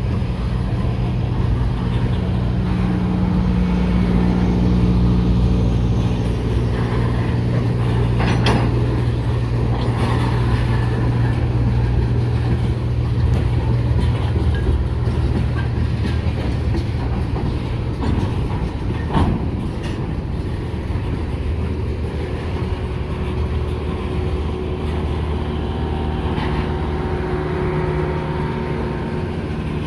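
EMD diesel-electric freight locomotives working under load: a steady low engine drone whose pitch shifts partway through. Two sharp clanks cut in, about eight and nineteen seconds in.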